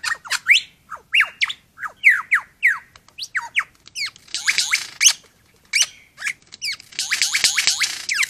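Male superb lyrebird singing his display song while dancing: a string of quick whistled notes that sweep downward in pitch. It breaks into a dense, rapid run of notes about four seconds in and again for the last second or so.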